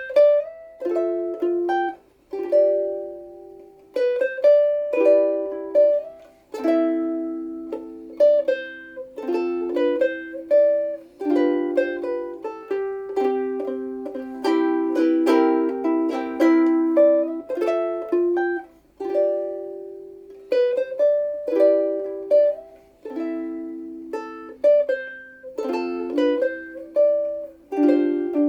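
Seilen SLVS-255 soprano ukulele with a Hawaiian koa body, played solo: a plucked melody over chords, each note ringing and decaying. The playing starts abruptly at the beginning.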